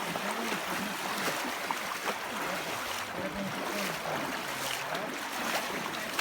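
Shallow stream water running and splashing steadily, with faint voices in the background.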